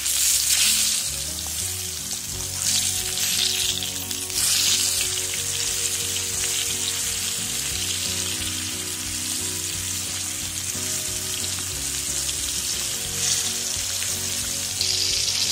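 Rice-flour-coated sole fillets shallow-frying in hot oil in a nonstick pan: a steady sizzle that swells louder a few times.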